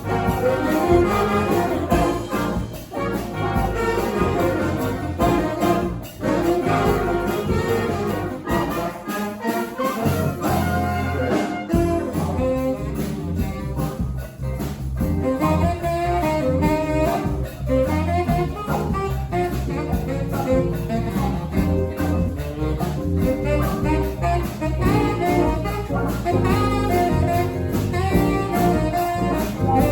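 Brass band playing live: horns over a steady drum beat, with the bass dropping out for about a second near the middle.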